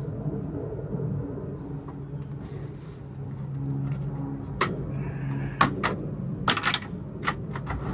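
A series of sharp knocks and clicks from parts being handled during the boat-wiring work, starting about halfway in, over a steady low hum.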